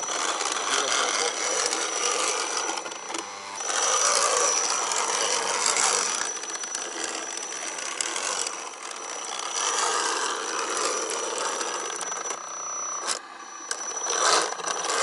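RC scale Land Rover Defender crawler's electric motor and gearbox whining steadily under load as its tyres churn through deep mud. The sound drops briefly twice, about three seconds in and near the end.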